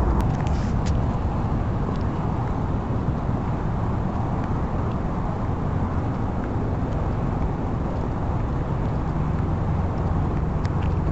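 Steady low rumble of vehicle engines and traffic, with a low hum that holds steady through the second half and a few light clicks.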